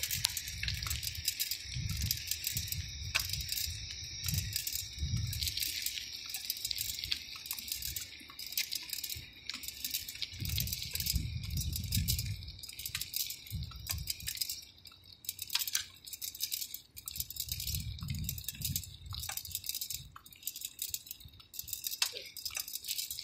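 Light, continuous rattling and clicking handling noise from a camera carried on the move, with irregular low rumbles of wind on the microphone.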